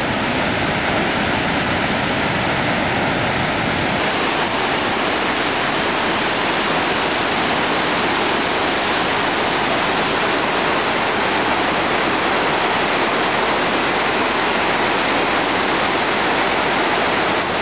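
Steady rushing of water, first from the falls at Niagara, then, after a cut about four seconds in, from the Niagara River rapids just above the falls.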